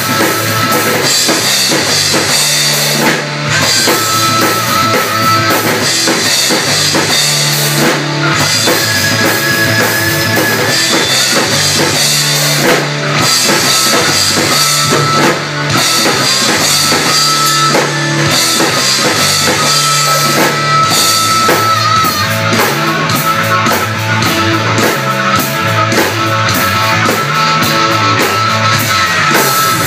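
A child playing a rock beat on a Ludwig drum kit, with bass drum and cymbals, over a rock recording with guitar and bass.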